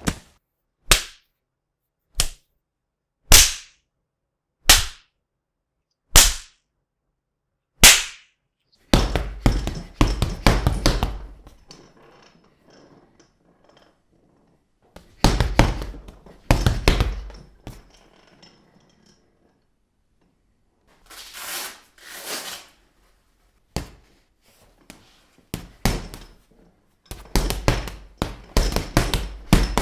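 Punch sound effects: seven single hard punch hits spaced a second or so apart, then bursts of rapid, overlapping punches and thuds with a deep low thump under them, broken by short pauses.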